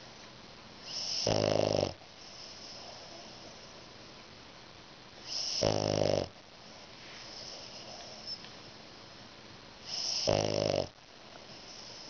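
French Bulldog snoring in its sleep: three snores, each about a second long and about four and a half seconds apart, with quieter breathing between them.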